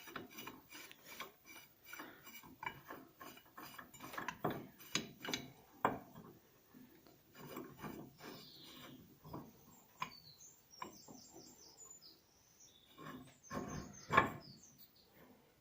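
Irregular metallic clicks, knocks and scrapes of hand tools and ball-joint press parts being handled and worked against the car's lower suspension wishbone while the new ball joint is seated.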